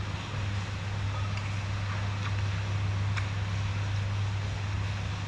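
Steady hiss of heavy rain over a constant low hum, with a few faint clinks of a metal spoon against a glass bowl.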